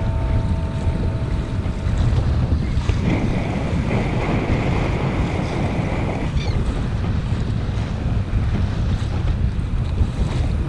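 Wind blowing hard on the microphone, with choppy water splashing against a kayak's hull as it moves across rough open water. The noise is steady and mostly low rumble.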